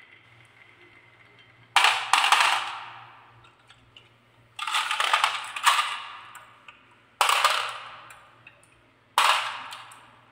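Marbles clattering down a wooden marble run: four bursts of rattling, each starting sharply and fading over about a second.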